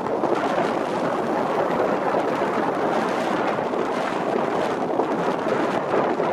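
Steady rush of wind on the microphone of a moving motorbike, mixed with the noise of scooter traffic, with no breaks or distinct events.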